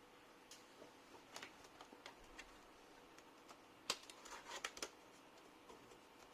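Faint scattered clicks and scrapes of a laptop's plastic keyboard deck and casing being handled during disassembly, with a quick run of sharper clicks about four seconds in.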